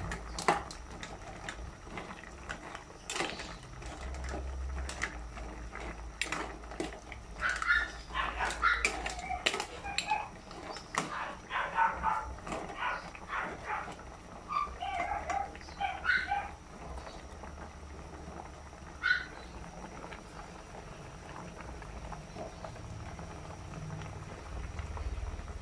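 Mussel soup with greens boiling in an aluminium pot, with a ladle clicking against the pot many times over the first ten seconds or so. In the middle, a run of short calls from a domestic animal is the loudest sound.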